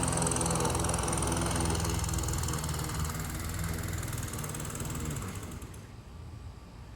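Petrol lawn mower engine running steadily, then fading away about five seconds in.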